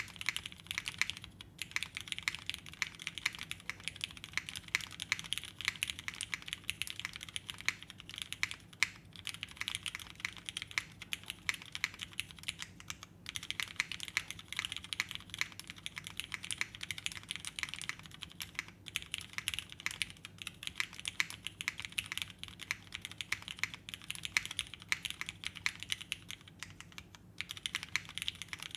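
Fast continuous typing on a custom 65% mechanical keyboard with an aluminium plate, lubed Cherry retooled switches and GMK keycaps: a dense run of crisp key clicks. It breaks off briefly a handful of times.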